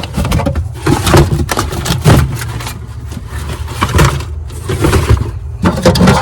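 Irregular knocks, clatters and scrapes of hard parts being handled and moved about, over a steady low hum.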